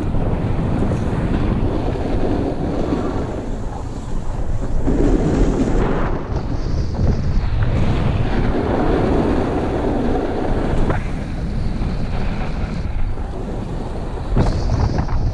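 Wind buffeting the microphone of an action camera moving fast downhill, a constant low rumble, with swells of hiss from edges carving over groomed snow about a third of the way in and again past the middle.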